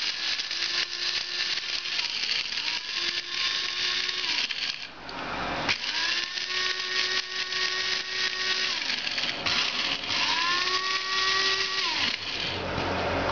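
Electric blade spice grinder running in four pulses, its motor whine rising as each pulse starts and falling away as it is let go. Toasted whole spices, mustard seeds, cloves, cumin, coriander, peppercorns and fennel, rattle against the lid as they are ground to a smooth powder.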